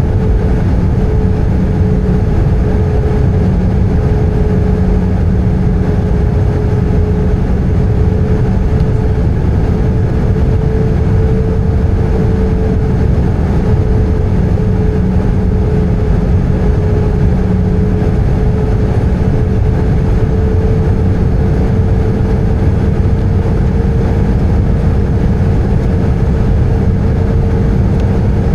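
Airbus A320 cabin noise in flight: the steady roar of the jet engines and airflow, with a steady droning tone that drifts slightly in pitch.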